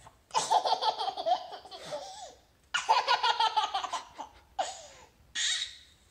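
A baby laughing hard: two long fits of rapid, pulsing laughter, then two short bursts near the end.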